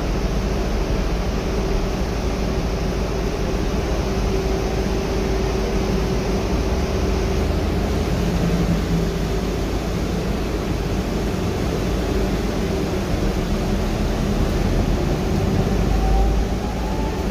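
Inside a Gillig trolley-replica hybrid transit bus under way: a steady rumble of drivetrain and road noise with a faint hum, and a faint rising whine near the end.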